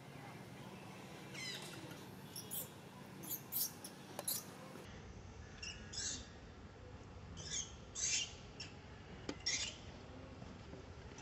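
Infant macaque giving a string of short, high-pitched squeals, about a dozen spaced irregularly.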